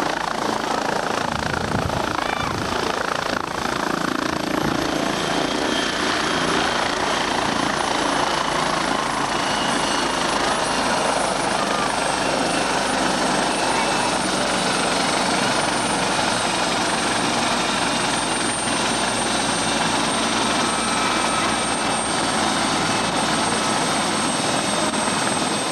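Air ambulance helicopter on the ground with its turbine engine and rotor running: a loud, steady rush of rotor noise with a high turbine whine that slowly falls in pitch.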